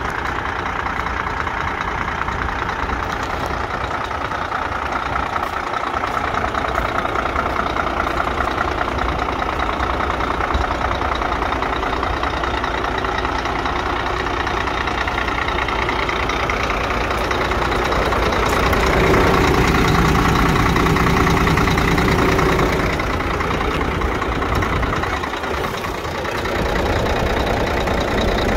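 Scania P114 380 truck's 11-litre six-cylinder diesel engine idling steadily, louder for a few seconds about two-thirds of the way through.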